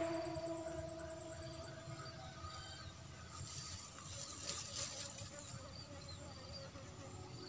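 Faint outdoor insect and bird sounds: a rapid high pulsing trill near the start and short high chirps repeating throughout, with a soft rustle about four to five seconds in.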